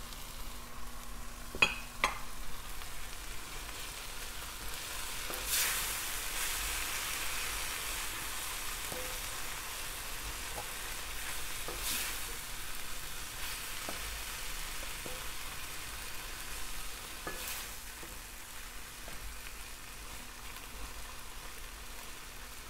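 Spinach and pepper stew (efo riro) sizzling in an enamelled braiser while a wooden spatula stirs it, with two sharp knocks of the spatula on the pan about two seconds in. The sizzle is that of a stew cooking down dry, short of liquid.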